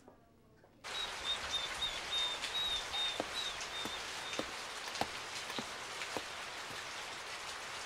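Steady rain falling, with scattered sharper drop ticks, starting about a second in after a brief hush. A faint high chirping repeats over the next few seconds.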